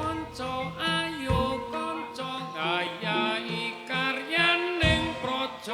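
Javanese gamelan piece (gending) with singing over a wavering melodic line, and two deep drum strokes, one about a second in and one near the end.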